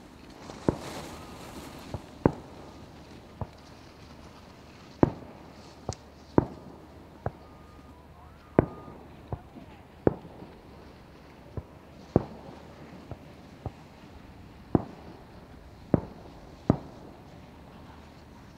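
Aerial firework shells bursting one after another, a sharp bang roughly every second at uneven spacing, with a hissing crackle of burning stars about a second in.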